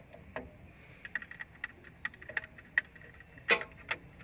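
Irregular small clicks and taps of a screwdriver and wire end working the screw terminals of a plastic voltage protection relay, with a sharper pair of clicks about three and a half seconds in.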